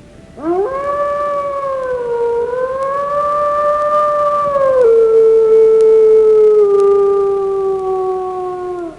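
A single long canine howl, one held note lasting about eight seconds: it swoops up at the start, wavers, drops to a lower pitch about halfway through and slides gently down before ending.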